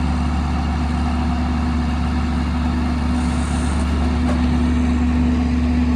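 A farm tractor's diesel engine running steadily at an even speed, with a deep low hum and a constant tone above it.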